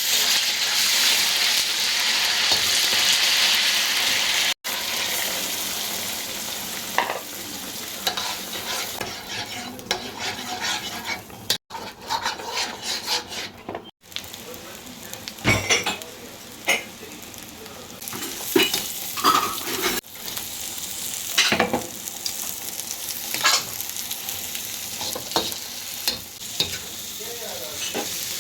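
Food frying and sizzling in a pan while being stirred, the spatula scraping and clicking against the pan again and again. The sizzle is loudest in the first few seconds, and the sound drops out abruptly a few times.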